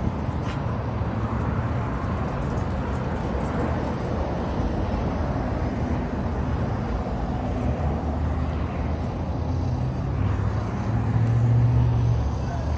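Steady motor-vehicle noise: a low engine hum and rumble that swells louder about eleven seconds in.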